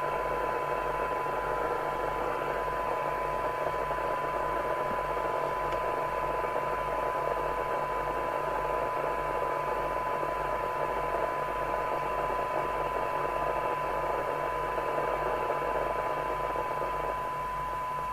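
Harrier CBX FM CB radio's speaker giving a steady test tone buried in loud receiver hiss: a weak signal from the signal generator, set low for a sensitivity (SINAD) check during receiver alignment. The hiss eases a little near the end.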